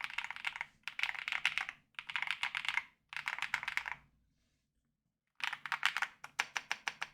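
Typing on an AKKO MU01 wooden-case mechanical keyboard with its white sound-dampening foam taken out. Four quick runs of keystrokes, each about a second long, come first, then a pause of about a second, then a run of separate, evenly spaced keystrokes near the end.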